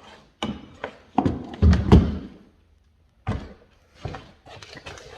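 A series of knocks and heavy thumps on a wooden staircase, the two loudest and deepest about one and a half to two seconds in, then a few lighter knocks.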